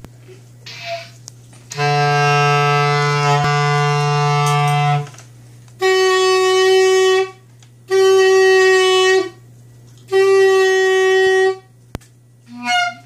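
Clarinet played: one long low note held about three seconds, then three separate, shorter notes on the same higher pitch with short gaps between them.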